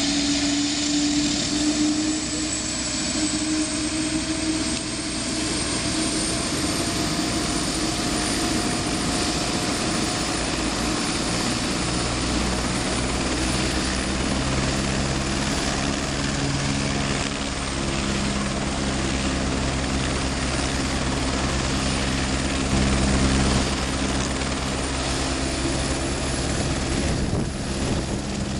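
Single-engine Eurocopter AS350 Écureuil helicopter running on the ground: its turbine whine rises slowly in pitch over the first several seconds as the main rotor comes up to speed, then holds steady over the low beat of the rotor. Near the end it lifts off into a hover.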